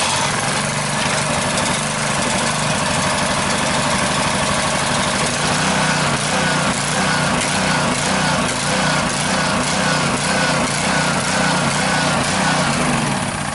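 Honda small gasoline engine on a Landa PD3 pressure washer, just pull-started and running steadily, driving the pump as AR Pump Saver antifreeze is drawn through it for winterizing.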